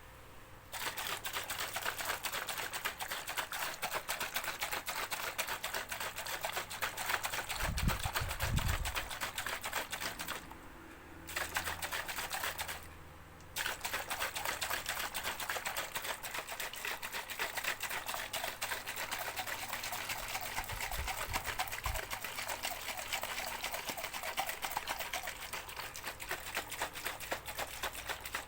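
A shaker being shaken fast and steadily: a dense rattle of rapid clicks that stops briefly twice about halfway through. Low bumps come at about 8 s and about 21 s.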